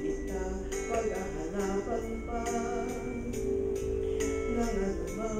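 A woman singing karaoke into a handheld microphone over a backing track with a steady beat.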